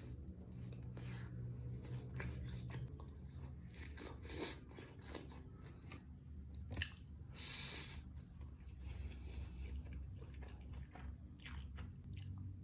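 A person biting and chewing food, with irregular crunches and crackles, a louder brief burst about seven and a half seconds in, and a steady low hum underneath.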